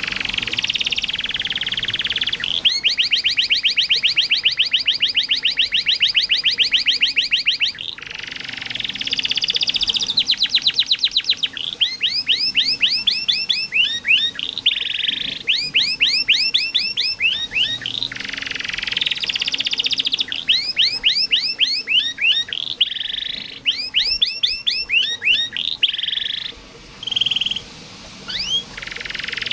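Domestic canary singing a long, continuous song. It strings together very fast trills of repeated notes and rolling series of rising chirps, with brief breaks between phrases and a short lull near the end.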